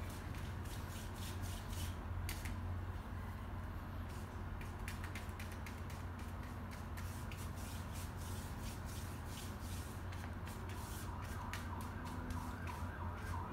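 Steady low background hum, with faint irregular scratches and ticks of a flat paintbrush dragged across canvas paper in horizontal strokes.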